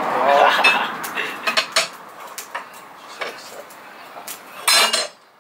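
Scattered metallic clicks and taps of a hand cutting tool against metal scooter handlebars as they are cut, with one louder metal scrape near the end.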